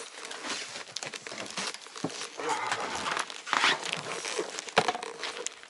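Rustling and crinkling of clothing and gear being handled and carried, with scattered clicks and a couple of sharper knocks, about two and five seconds in.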